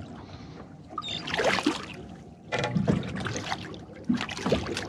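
A hooked Spanish mackerel splashing and thrashing at the water's surface beside the boat as it is pulled up by the leader, in about three splashy bursts.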